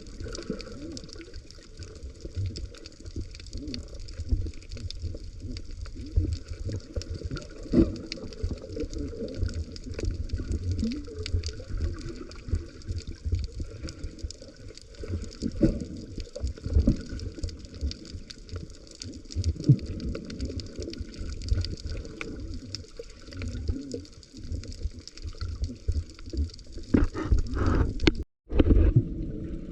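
Water sloshing and gurgling, with irregular knocks and taps throughout and a brief drop-out near the end.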